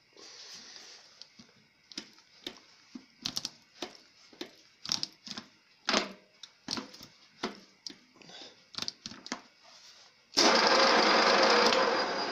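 Scattered irregular clicks and knocks, then about ten seconds in a milling machine is switched on and runs steadily and loudly, its spindle turning with a boring head fitted.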